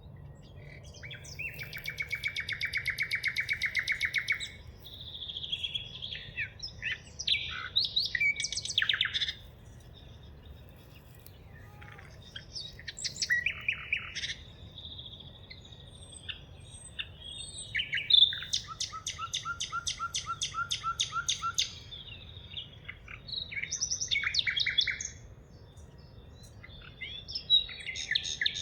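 Wild songbirds singing and calling, with two long, fast trills of rapidly repeated notes (about a second in and again past the middle) and shorter chirps and whistled phrases between them.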